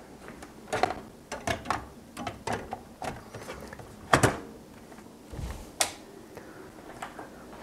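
Clicks, knocks and rattles of a graphics card being fitted into a desktop PC case: the card seated in its slot and fastened, and cables plugged in by hand. The sharpest knocks come about four seconds in and again near six seconds.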